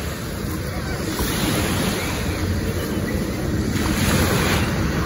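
Griffon 12000TD hovercraft's ducted propellers and lift fans running at cruising power as it approaches across the water, a steady drone that grows gradually louder, mixed with wind on the microphone.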